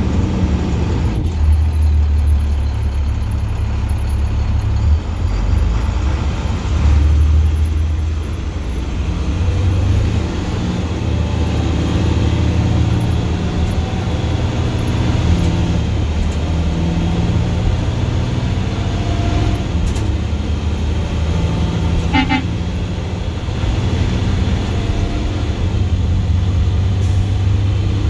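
Straight-piped International DT466E inline-six turbo diesel running under way, heard from the driver's seat: a loud, deep exhaust drone that steps up and down in level as the truck accelerates and cruises. A short, rapid high tooting sounds about three-quarters of the way through.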